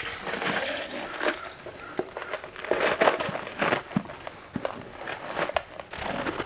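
Icy slush of isopropyl alcohol and water being poured from a plastic jug into a 3D-printed PLA mold: a steady rush of liquid with many small clicks and knocks as ice chunks tumble out.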